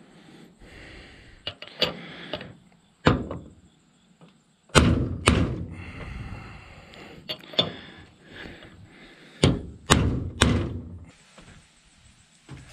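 Hammer blows on a socket, driving the outer race of a double cardan drive shaft's CV centering ball into its yoke. About ten uneven strikes, some in quick pairs or threes, the heaviest about five seconds in and again near ten seconds.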